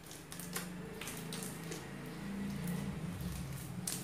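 Hands squeezing and kneading a large lump of slime, squishing, with several short clicking pops; the brightest comes near the end.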